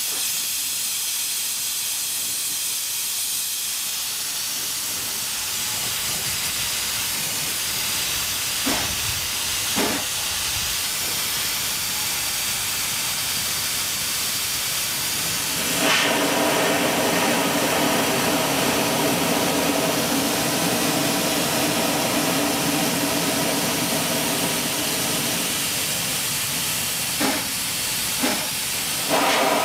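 CO2 laser cutter with a 100 W tube cutting 8 mm acrylic: a steady hiss of air at the cutting head, with a machine hum of several steady tones coming in about halfway through and making it louder. A few brief sweeps are heard along the way.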